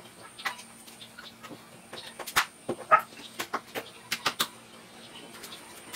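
Irregular light knocks and taps from a plywood wall cabinet being handled and pressed against the wall to set its position. There are about a dozen short knocks, the loudest a few seconds in.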